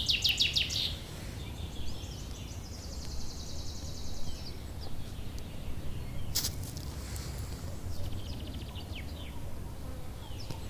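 Nightingale singing in separate phrases: a rapid series of clicking notes at the start, a long high buzzy phrase a few seconds in, and another quick trill near the end. A sharp click about six seconds in, over a steady low background rumble.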